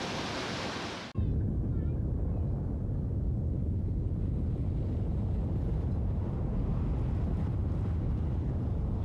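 A steady hiss for about a second, then a sudden cut to a loud, deep, steady rumble of strong wind buffeting the microphone under the 1997 Jarrell F5 tornado.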